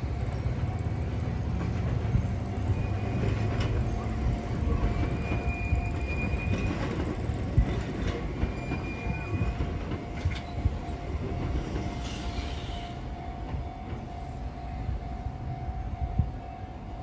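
Enoden electric train running past close by through a level crossing: a low rumble of wheels on rail with a few sharp knocks at rail joints and brief high-pitched wheel squeals. A steady ringing tone runs underneath, fitting the level crossing's warning bell.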